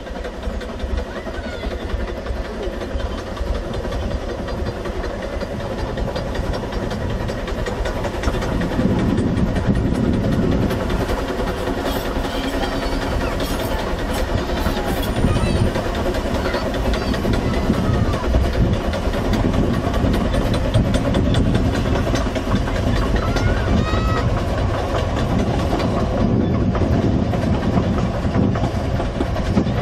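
Narrow-gauge steam locomotive working a train of carriages past, with the rumble and clatter of the train. It grows louder from about eight seconds in as the train comes close.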